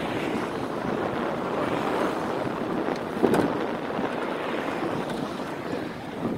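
Steady noise of wind buffeting the microphone of a rider cycling along a beachfront street, mixed with traffic, with one brief knock a little past the middle.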